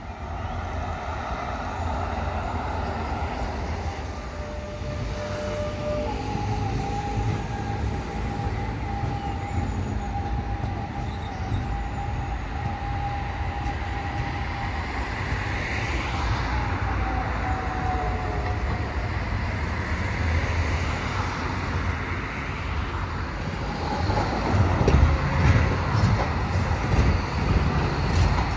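Steady low rumble of a moving vehicle, with a thin squealing tone held for about ten seconds in the middle; the rumble grows louder near the end.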